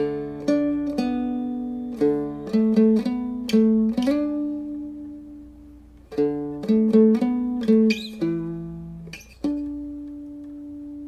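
Soundtrack music: a plucked string instrument picking out a melody note by note, pausing briefly midway, then striking a final chord that is left to ring out.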